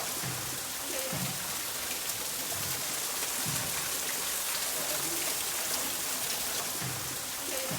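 Steady rush of falling water, as from the large indoor waterfall of a conservatory: an even, continuous splashing hiss.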